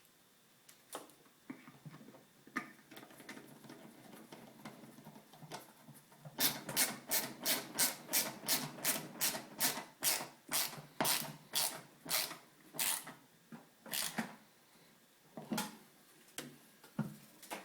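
Bolts being driven back into a TriStar vacuum's housing with a hand tool: faint rubbing and handling at first, then a steady run of sharp clicks, about three a second, for several seconds, with a few more clicks near the end.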